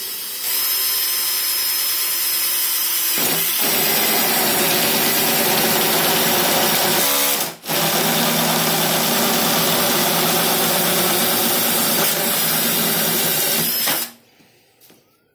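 Power drill turning a 64 mm hole saw as it cuts through a plastic pipe wall, running steadily for about 14 seconds. It stops for a moment about halfway through, then starts again and cuts off shortly before the end.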